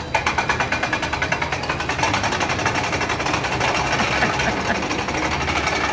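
Small steel roller coaster train rattling along its track: a fast, even clatter of wheels on rail that starts abruptly.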